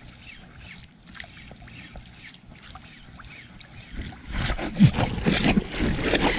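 Water splashing and sloshing up close, starting about four seconds in and going on irregularly, after a quieter stretch with only faint ticks.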